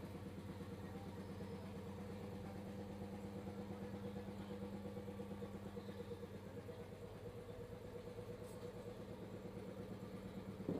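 Two-piston air compressor driven by a 3 HP single-phase electric motor, running steadily: a faint hum with a fast, even pulse.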